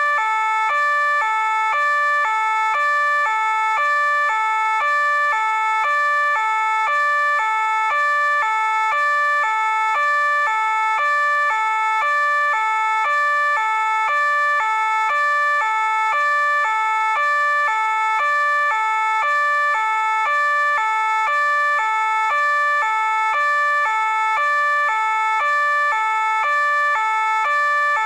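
French police two-tone siren ("pin-pon") sounding continuously, alternating evenly between a lower and a higher note about once a second at a steady pitch and volume.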